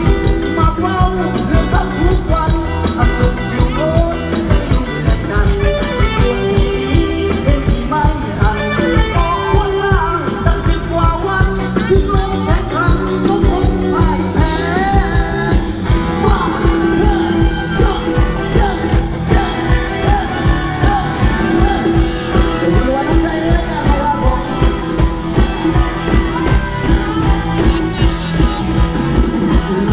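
Thai ramwong dance music played by a live band over a PA, with a singer and a fast, steady drum beat.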